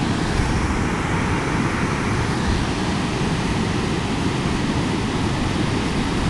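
Ocean surf breaking on a sandy beach: a steady rush of wave noise with no distinct events.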